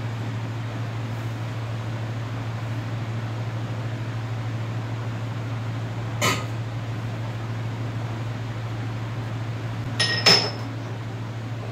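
A steady low hum throughout. About six seconds in, a single metallic clink as a steel tumbler is set on the steel lid of a clay water pot. Near the end, two sharp ringing clanks of a steel pan at the gas stove.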